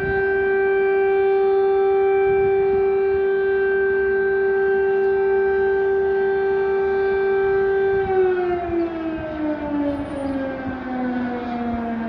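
Air raid siren sounding an alert: one steady, loud pitched tone held for about eight seconds, then slowly falling in pitch.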